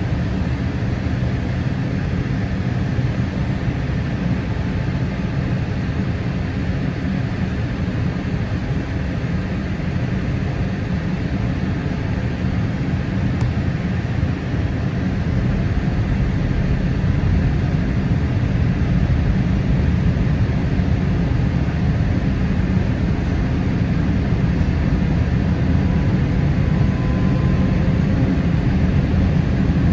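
Steady cabin noise inside a Boeing 787-8 airliner descending to land: a rush of airflow over a low engine drone, growing slightly louder about halfway.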